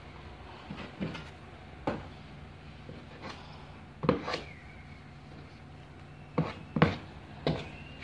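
Hand plastering of a wall patch: scattered knocks and clacks of a plastering knife and plaster tub against each other and the wall, about seven in all, over a steady low hum.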